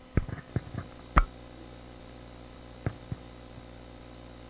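Handling noise from a handheld microphone being lowered and set down on a wooden lectern: a quick cluster of small clicks and knocks, a louder thump about a second in, then two lighter taps about three seconds in, over a steady electrical hum.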